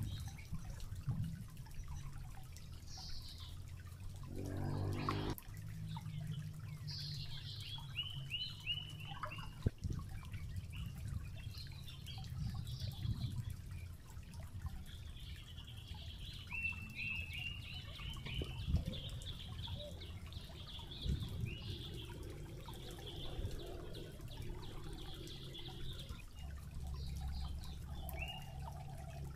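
Shallow stream trickling over rocks, with birds chirping in quick runs of short downward-sliding notes.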